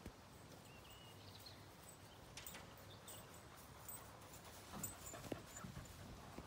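Near silence: faint outdoor ambience with a few soft knocks and thuds.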